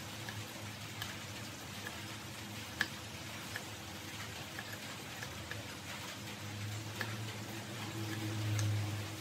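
Kitchen knife paring the skin off a breadfruit on a wooden cutting board: scattered small clicks and taps of the blade over a steady hiss, with one sharper click about three seconds in. A low hum swells briefly near the end.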